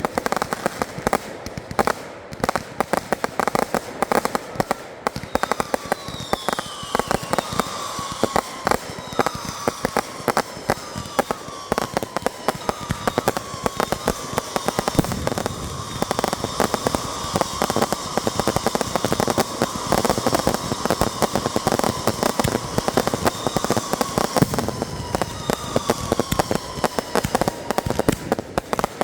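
Consumer fireworks going off in a dense, continuous barrage of rapid cracks and bangs, with whistling tones falling in pitch again and again over the top.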